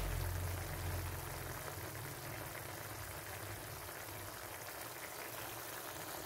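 Chicken and potatoes simmering in adobo sauce in a pan: a steady bubbling hiss of the boiling sauce. A low hum underneath fades out in the first two seconds.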